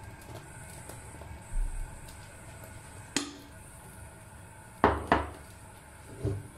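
Kitchenware knocking as a wok and oil-pouring utensils are handled on a gas stove: a sharp clink, then two loud knocks in quick succession, and a softer knock near the end as the wok is taken by its handle.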